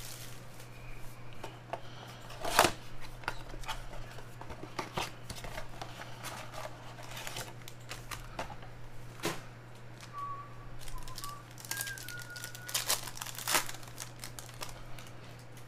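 Cardboard blaster box opened and foil trading-card packs torn and crinkled, with cards handled: scattered rustling and clicks, the sharpest about two and a half seconds in. A steady low electrical hum runs underneath.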